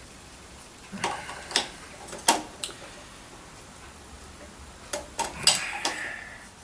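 Clicks and knocks of the vacuum cleaner's metal and plastic parts being handled and fitted together, in two short clusters: a few sharp clicks about a second in, then more a few seconds later.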